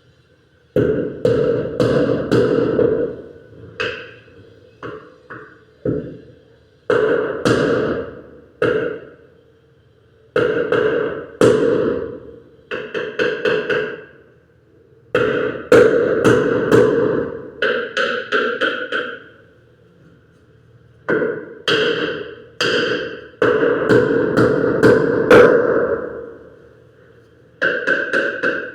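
Hammer blows driving nails into wood, in quick runs of several strikes that ring, broken by short pauses.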